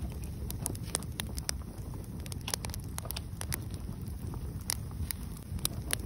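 Wood fire burning in a fireplace: irregular sharp crackles and pops, about a dozen in six seconds, over a steady low rush.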